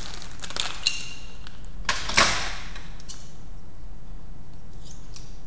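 Hands handling a plastic packet of rubber balloons: a few light clicks and one short rustle about two seconds in, over a steady low electrical hum.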